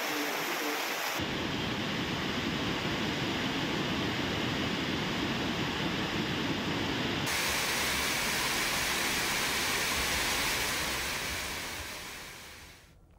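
Steady hiss of heavy rain, switching about a second in to the rushing water of Velli Falls running in flood after hours of heavy rain, then back to heavy rain about seven seconds in, fading away near the end.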